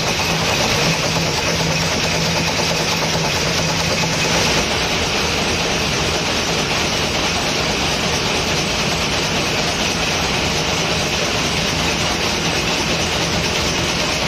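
Wire-fed screw-making machine running: a loud, continuous mechanical clatter of fast repeated strokes, with a low hum that fades about four seconds in.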